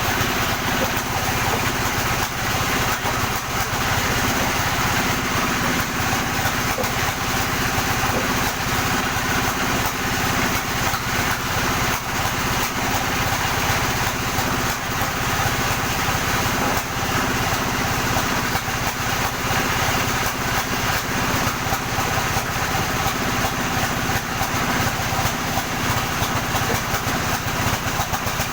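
Sawmill running steadily, its engine-driven saw giving an unbroken mechanical drone.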